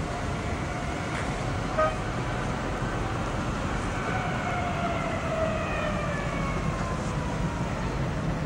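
Outdoor city traffic noise, with a short tonal toot about two seconds in and a whine of several tones that falls slowly in pitch from about four to seven seconds in.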